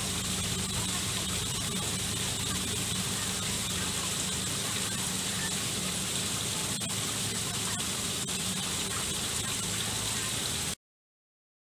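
Small garden waterfall splashing steadily into a koi pond, with a low steady hum underneath; it cuts off abruptly near the end.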